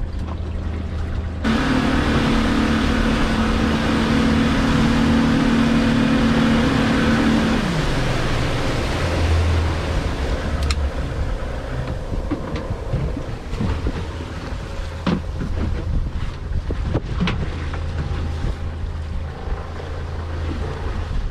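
Boat engine throttled up suddenly about a second and a half in, running at a steady high pitch over rushing water and wind, then throttled back around eight seconds in, its pitch dropping to a low rumble with water sloshing against the hull and a few sharp knocks.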